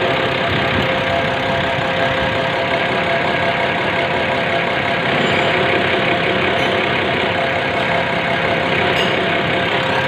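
Diesel fuel injection pump test bench running at a steady speed, driving a Bosch VE rotary injection pump: an even mechanical running sound with a few constant tones through it.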